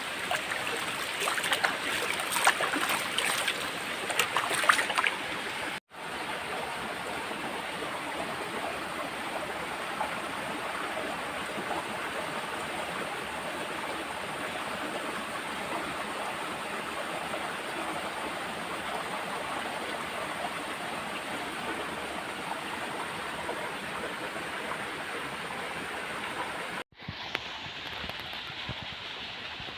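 Stream water flowing and gurgling steadily. For the first six seconds it is choppier, with many crackling splashes, then it cuts to a smoother, even rush, with another abrupt cut near the end.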